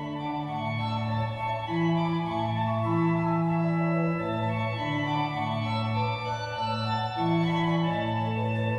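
Early-17th-century Liège pipe organ playing sustained chords over a stepping bass line, the bass notes changing every half second to a second.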